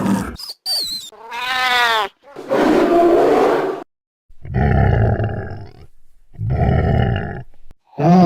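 A run of cartoon monster sound effects: a short high falling whistle and a pitched groan, then three roars about a second and a half long each, separated by brief gaps.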